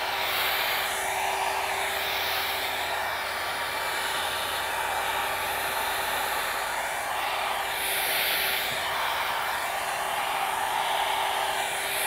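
Small hand-held Conair hair dryer, used without its brush attachment, running steadily as it blows alcohol ink across a plastic sheet. A constant hum sits under the rush of air, and the rush rises and falls as the nozzle is moved about.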